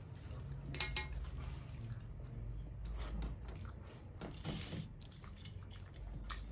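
Close, wet eating sounds: scattered smacks and clicks of chewing and of fingers squishing rice and curry on a plate, sharpest about a second in, over a low steady hum.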